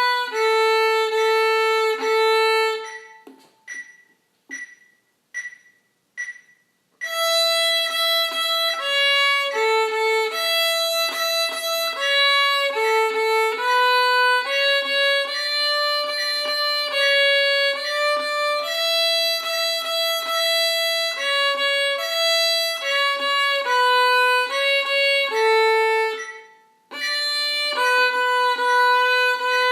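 Solo violin playing a simple exercise tune in steady, held notes. About 3 s in the playing stops and several short, evenly spaced clicks sound before the violin starts again about 7 s in; there is one more short break near the end.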